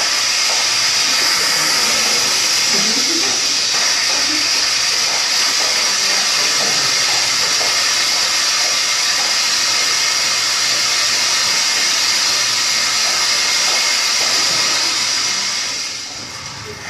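Audience applause, a steady mass of clapping that dies away near the end.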